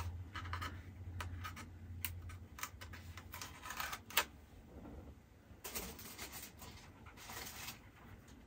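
Small sealed cardboard perfume box being opened by hand: packaging crackling and scattered sharp clicks of fingers and nails on the box, with one louder click about four seconds in.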